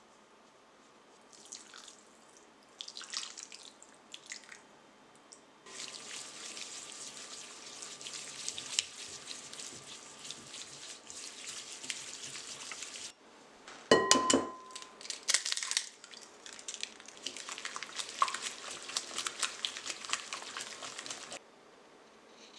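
Melted butter foaming and crackling in a saucepan, a dense sputter of fine pops in two long stretches that each start and stop abruptly. Between them comes one loud metallic clank that rings briefly.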